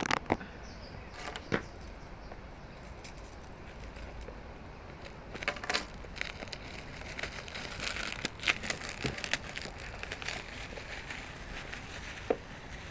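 Clicks, taps and crackling as a sealed phone box and its plastic wrap are worked open by hand with a makeshift tool in place of a box opener. A sharp click right at the start, then denser crackling about five seconds in and again from about eight to eleven seconds.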